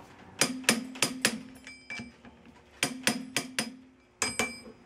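Click-type torque wrench clicking over repeatedly at its 120 ft-lb setting as the ring gear bolts on a Ford 9-inch spool are double-checked. The sharp metallic clicks come in quick runs of about four, each with a ringing tail.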